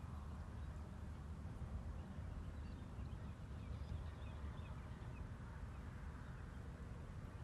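Steady low wind rumble on the microphone at the water's edge, with a few faint, short, high bird chirps in the distance.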